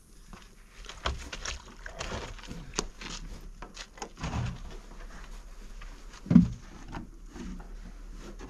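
Scattered knocks and clatter of plastic containers being handled (a jerrycan, jars and a cup), with one louder thump about six and a half seconds in.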